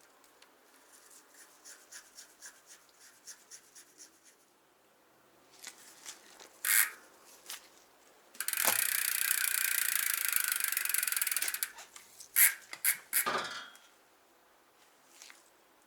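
Bicycle rear hub's freewheel ratchet clicking. Slow faint ticks at first, then a fast continuous buzz of clicks for about three seconds as the hub is spun, and a few sharp clicks near the end.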